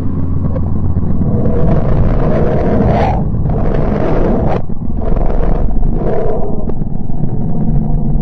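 Sonified spacecraft data played as the sound of the planet Mercury: a loud, deep rumbling roar that swells in three or four surges, each cutting off abruptly.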